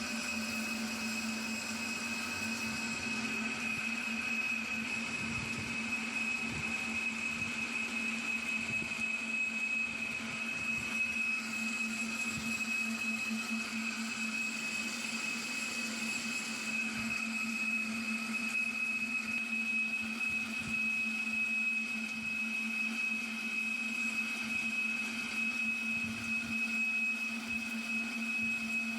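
CNC lathe running through a deep-boring cut: a steady high-pitched whine over a constant low hum from the spindle and the boring bar in the workpiece.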